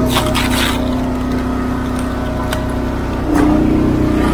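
Engine of a Wolfe Ridge hydraulic log splitter running steadily, its pitch stepping up and getting louder a little after three seconds in. A quick run of sharp cracks near the start, with a single click later, as the wood splits and pieces shift.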